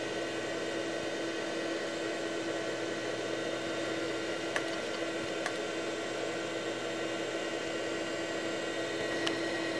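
Steady electrical hum and fan-like whir of running computer and video equipment, with one steady mid-pitched tone under it. A few faint clicks come near the middle and near the end.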